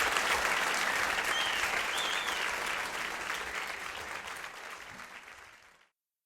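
Audience applause with a brief whistle about two seconds in, fading out steadily and cutting to silence near the end, at the close of a live song recording.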